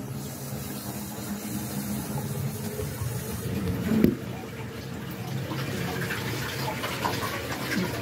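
Toilet flushing: water rushing and swirling in the bowl. A single sharp knock comes about four seconds in.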